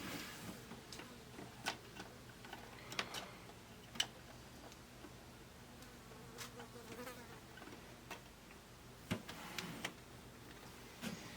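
Scattered light clicks and taps of small plastic pop bumper parts being handled and set down, the sharpest tap about four seconds in, over a faint steady hum.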